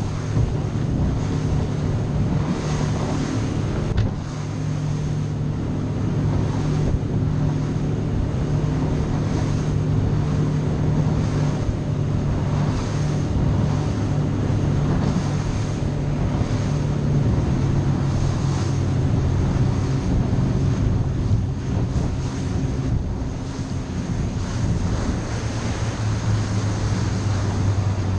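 Outboard engine of a Cobia 237 center-console boat running under way, a steady drone with wind buffeting the microphone and water rushing along the hull. The engine note drops lower a little past halfway and again near the end.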